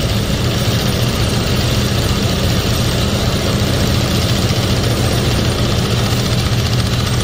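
Vibratory pile hammer on a crane hook running steadily while driving a steel H-beam pile into the ground: a loud, unbroken low hum.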